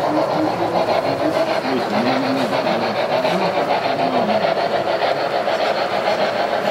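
1/43-scale model steam train with passenger coaches running steadily along the track, its wheels and motor making an even mechanical running sound, with people talking in the background.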